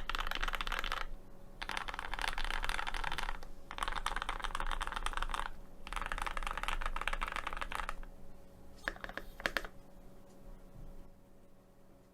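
Typing on a GMMK Pro mechanical keyboard with lubed, filmed Kinetic Labs Hippo switches, GMK keycaps and an aluminium plate: dense clacking keystrokes in four bursts of about two seconds each, then a few separate heavier keystrokes about nine seconds in.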